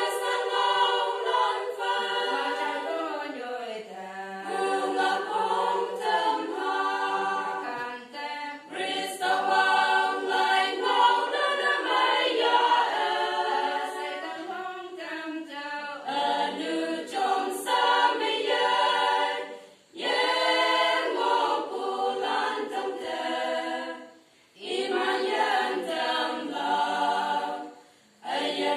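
Women's choir singing a cappella in several parts, breaking off briefly between phrases three times in the second half.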